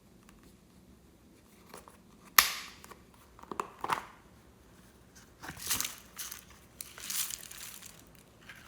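Slime being squished and pressed, giving several short bursts of crackling and popping, the sharpest one about two and a half seconds in.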